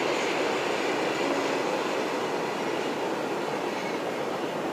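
Passenger train carriages rolling across a steel girder bridge: a steady noise of wheels on rails, easing slightly as they pass.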